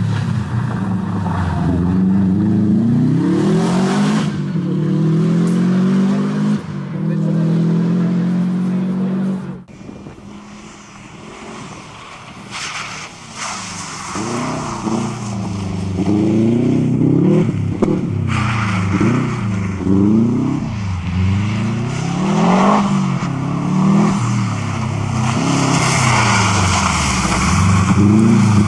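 A Subaru Impreza rally car's flat-four engine revving hard, its pitch climbing and falling again and again as the driver accelerates, shifts and lifts off through a loose-surface section. The sound drops off sharply about ten seconds in. It then returns as a run of short, quick revs.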